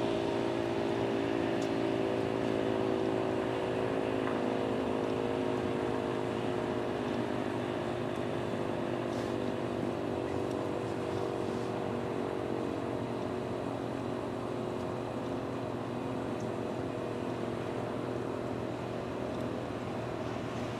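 Erick outdoor warning siren winding down at the end of a short alert: a cluster of steady tones sliding slowly lower in pitch and gradually fading.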